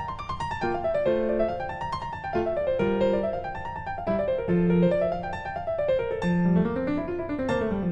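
Background instrumental music on piano: quick runs of notes rising and falling over held bass notes.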